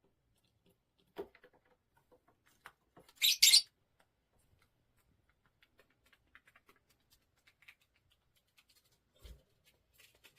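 Pet parrot giving two short, harsh, high-pitched squawks about three seconds in, among soft scattered ticks and taps.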